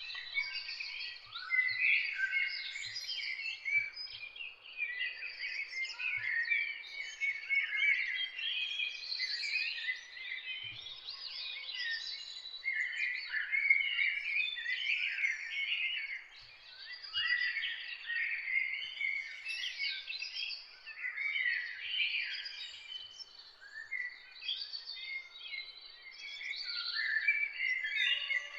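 Many songbirds singing at once: a dense chorus of short, overlapping chirps and whistled phrases with no pause.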